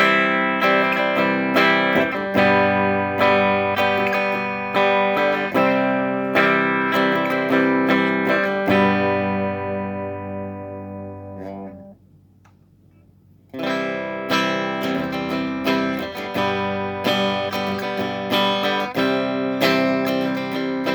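An electric guitar played through a Russel RG15 combo amp, picking notes and chords that ring out and decay. The playing stops about halfway through for a second or two, then starts again.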